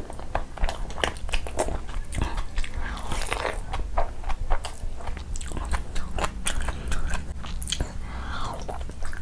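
Close-miked eating: a person chewing mouthfuls of meat curry, eaten by hand, with many quick smacking clicks of the lips and mouth.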